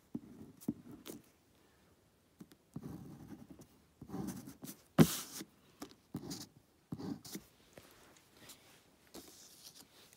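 Pencil scratching on paper in short, irregular strokes, with a sharp knock about five seconds in.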